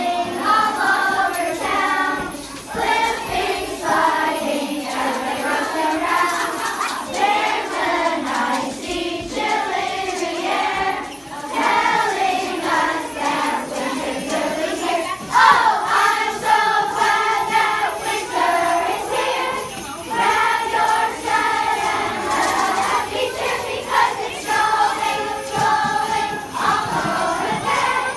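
A large group of children singing a Christmas song together.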